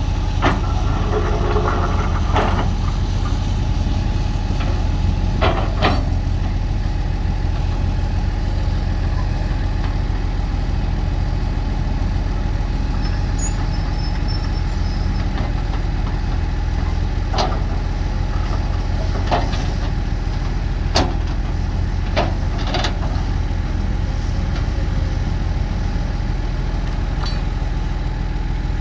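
Heavy diesel engine of earthmoving machinery running steadily at low revs, with several short sharp knocks or clanks at irregular intervals.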